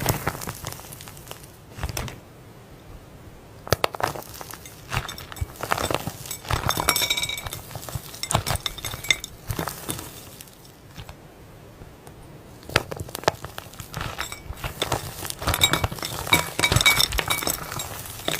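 Slime being played with by hand: clusters of sharp clinks and crackles with quieter gaps between, some clinks ringing briefly like glass.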